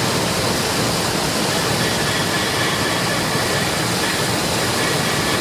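6FT-PD1 combined maize grits milling machine running, a steady, even rushing noise, as corn grits pour from its outlet chute into a bowl.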